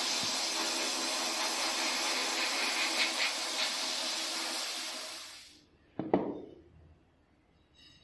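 A steady hiss from a tank of cloudy cleaning liquid with rusty metal gun parts immersed in it, fading out after about five and a half seconds. A single sharp knock with a short falling ring follows about six seconds in.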